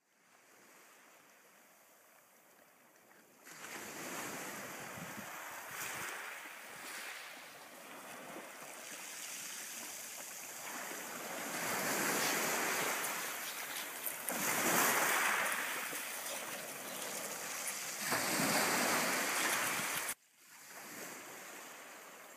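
Sea waves breaking and washing over a pebble beach, rising and falling in several swells. The sound comes in a few seconds in and cuts off suddenly near the end, after which it is quieter.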